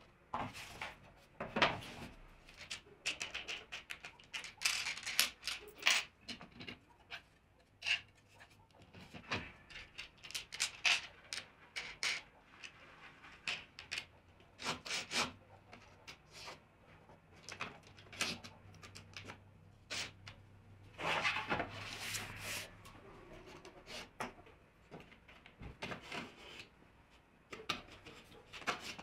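Irregular scraping, rubbing and light knocking as a crosscut sled's aluminium miter fence and a wooden fence bar are slid and positioned by hand on the plywood sled base.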